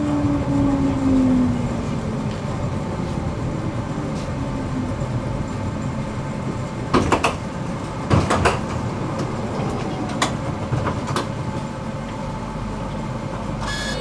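Electric tram running along the track, heard from inside the car: a steady rolling rumble with an electric motor whine that falls in pitch over the first couple of seconds. Around the middle come a few sharp clacks from the wheels on the rails.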